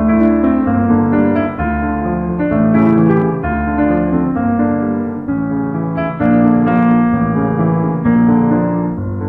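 Outro music led by piano or electric piano, with steady changing chords and a low bass line.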